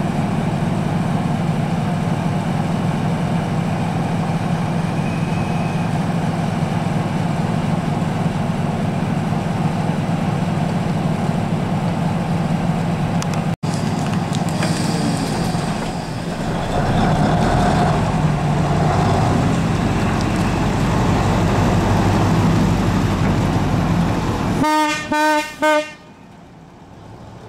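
Diesel shunting locomotive's engine running steadily, then working harder as the shunter moves off. Near the end, three short toots on its horn.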